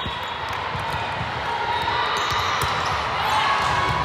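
Volleyballs thudding on a hard court floor: several irregular bounces and hits over a steady hall background.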